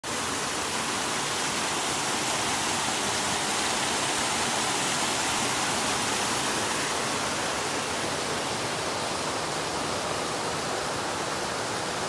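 Small waterfalls spilling over rock into a pool: a steady, even rush of water.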